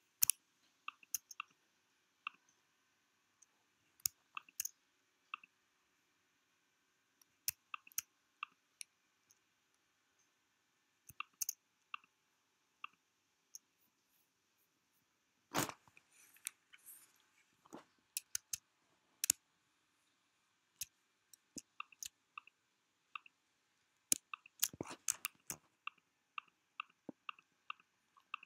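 Faint computer mouse clicks at irregular intervals, with a longer rustle about halfway through and a quick run of clicks near the end.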